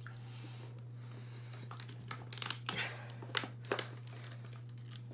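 Thin plastic water bottle crinkling and crackling in the hand while being drunk from, in scattered soft clicks that come more often in the second half.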